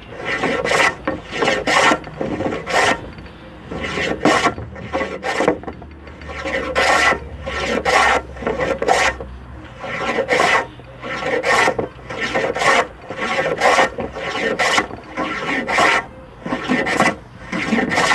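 Metal hand plane cutting along a wooden boat keel plank in quick repeated strokes, mostly in pairs, each stroke peeling off a shaving.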